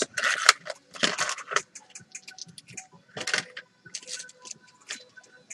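A plastic gear package rustling as it is opened, and small metal airsoft gearbox gears (Modify 15:1 speed gears) clinking together in a hand, in a string of short, irregular scrapes and clicks.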